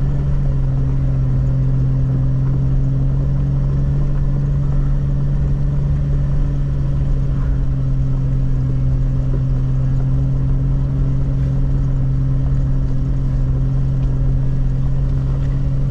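Jeep LJ running steadily under way: an even, low engine drone with no change in pitch.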